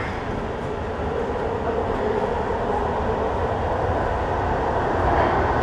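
Electric passenger train running, heard from inside the carriage: a steady rumble and hiss that grows gradually louder, with a faint whine rising in pitch.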